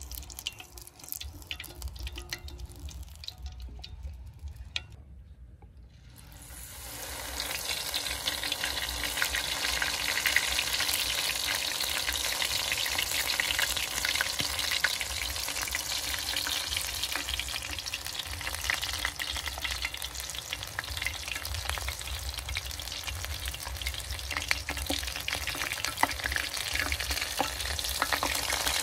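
Food frying in hot oil: a dense crackling sizzle that starts about six seconds in and keeps going, after a few quieter clicks and knocks.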